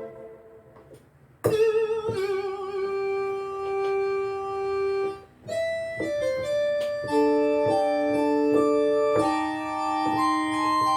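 A vintage-style keyboard preset from the Arturia Analog Lab V software instrument. A held sound dies away, then about a second and a half in a single note is held with a wavering vibrato. After a short break, from about halfway through, a phrase of notes and chords is played.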